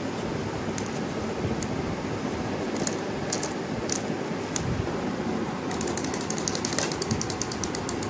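Clockwork of a small plastic wind-up chick toy: a few separate clicks as its key is turned, then a rapid run of ratcheting clicks from about six seconds in, over a steady background hum.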